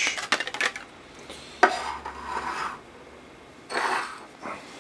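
Clear plastic blister packaging and its cardboard card being handled and opened: a quick run of crackling clicks at the start, then two bursts of rustling and scraping plastic.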